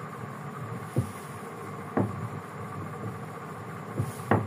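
Pen and clear plastic ruler working on notebook paper while triangle sides are drawn: a few light taps as the ruler and pen are set down, about a second in, two seconds in and twice near the end, with faint scratching of the pen on the paper, over a steady room hum.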